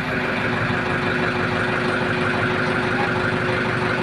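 An engine running steadily at idle, a continuous machine hum with a constant pitch.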